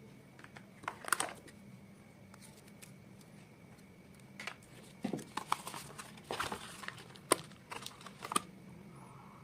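Hands handling a smartphone's retail box and packaging during unboxing: scattered sharp clicks and taps, with a stretch of crinkling packaging from about halfway through.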